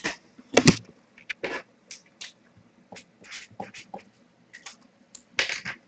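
Irregular soft clicks and rustles of hands at a desk, with a sharper click about half a second in and a quick cluster near the end.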